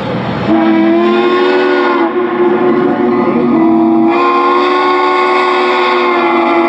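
Steam locomotive whistle blowing one long, steady blast. It opens with a rush of steam, then the whistle tone sounds, shifting slightly about two seconds in and growing louder again about four seconds in.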